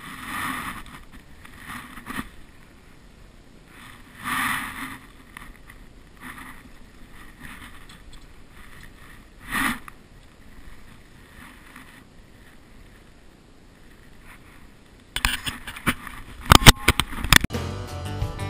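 Splashing and handling noise as a small zander is lifted from the water into an inflatable boat and unhooked, in a few short swells. About fifteen seconds in comes a run of loud, sharp clicks and knocks.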